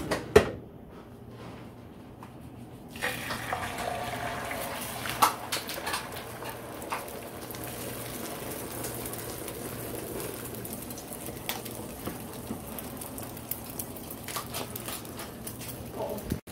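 Beaten eggs go into hot oil in a nonstick frying pan and sizzle, the hiss starting suddenly about three seconds in and then running on steadily, with a few light clicks and pops as the eggs fry.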